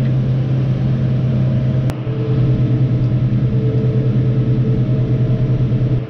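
New Holland T6 tractor's diesel engine running steadily under load, heard inside the cab as a constant low drone, while it drives a flail mower. A single sharp click about two seconds in.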